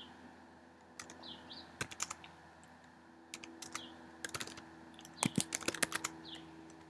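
Computer keyboard typing in short bursts of a few keystrokes, with quiet pauses between the bursts.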